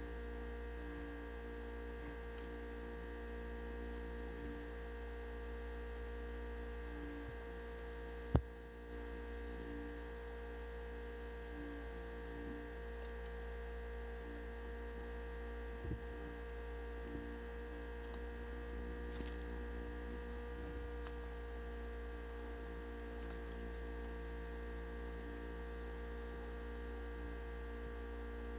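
A steady electrical hum made of several constant tones, with one sharp click about eight seconds in and a few faint ticks later on.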